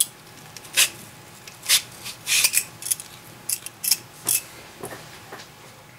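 Vegetable peeler drawn along a courgette, shaving off thin strips: a series of short, sharp scraping strokes, most of them in the first four and a half seconds.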